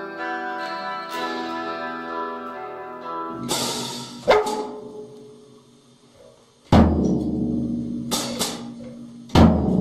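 A Fender electric guitar picks a slow run of ringing notes for about three seconds. Then a drum kit is struck at uneven intervals: about five loud cymbal crashes and drum hits, each left to ring out, the strongest with a deep thud.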